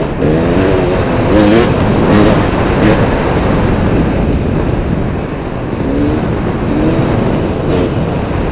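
Dirt bike engine running under the rider, its pitch rising and falling several times as the throttle is worked on a rough trail, with a few sharp knocks about two seconds in.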